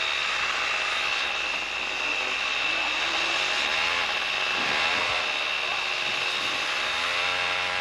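Three small two-stroke chainsaws running together, a steady buzzing drone. The engine pitch bends up and down around the middle and rises again near the end as the saws are tossed and caught in a juggle.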